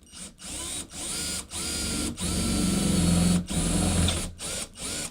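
Power drill with a 7 mm bit drilling a hole into an aluminium window frame, run in short repeated bursts. The motor whine rises in pitch as each burst starts.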